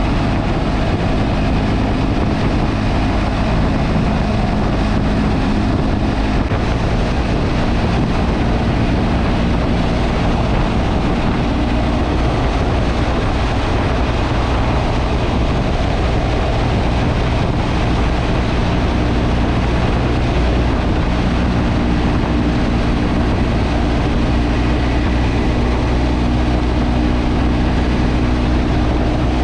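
Motorcycle engine running steadily under way, over a constant rush of wind and road noise. The engine note shifts about seven seconds in and again about two-thirds of the way through.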